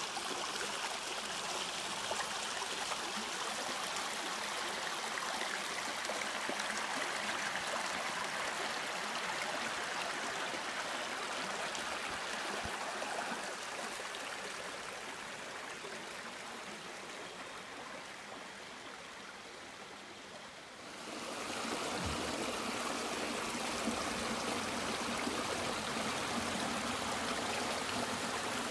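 Small rocky woodland brook running and trickling over stones in a steady rush of water. The sound fades for several seconds in the middle and comes back suddenly about three-quarters of the way through.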